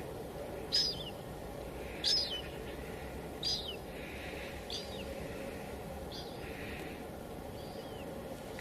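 Steady hiss of light drizzle on a window, with a bird repeating a short, high call that slides down in pitch, six times at about 1.3-second intervals, getting fainter toward the end.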